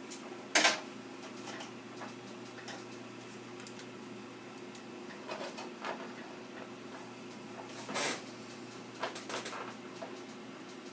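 Scattered clicks and light knocks of cable connectors being handled and pushed onto a motherboard inside a desktop computer case. The sharpest come about half a second in and again about eight seconds in, over a steady low hum.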